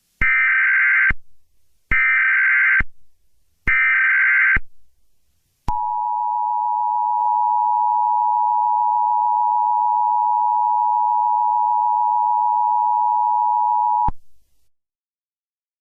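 Emergency Alert System tones: three short bursts of SAME digital header data, each about a second long, then the steady two-tone attention signal held for about eight seconds, cutting off suddenly.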